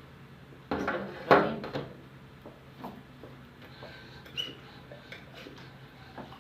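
Household objects being handled: a few sharp knocks and clatters about a second in, then scattered light clicks and taps.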